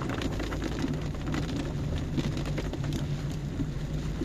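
Car engine pulling uphill under throttle, heard from inside the cabin as a steady low hum, with rain falling on the car and its windshield.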